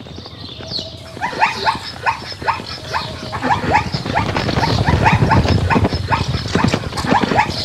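Plains zebras barking in a fast string of short, yelping calls, starting about a second in, over the thud of their hooves galloping on dry dirt, loudest about halfway through.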